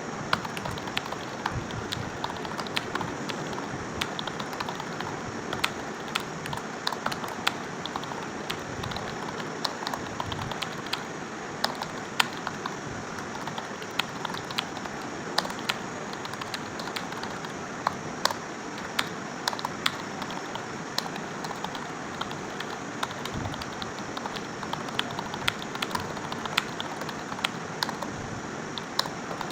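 Fast typing on a computer keyboard: a continuous, irregular stream of key clicks over a steady background hiss.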